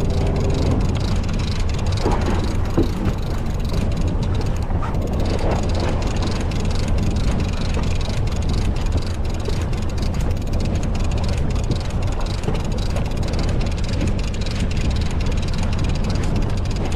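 Fishing boat's engine running at a steady idle, a low even hum, under the wash of wind and choppy sea.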